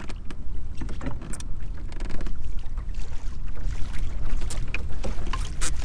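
Wind buffeting the microphone with a steady low rumble, over choppy water lapping against a kayak hull, with a few light knocks.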